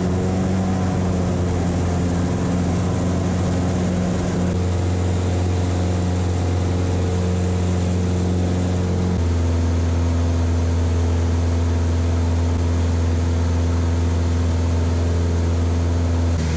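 Vans RV-7's piston engine and propeller at takeoff and climb power, heard inside the cockpit as a steady drone. Its note changes about nine seconds in.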